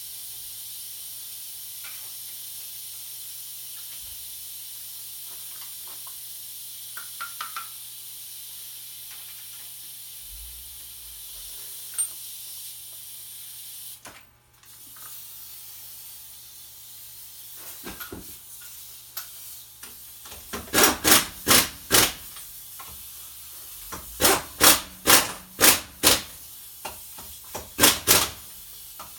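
Steady hiss, then about two-thirds of the way in a run of about a dozen loud, short bangs in three quick clusters, from tool work on the truck's wheel.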